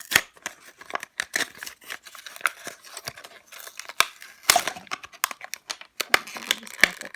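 A clear-windowed plastic-and-card toy package being ripped open by hand: a run of sharp crackles, snaps and tearing.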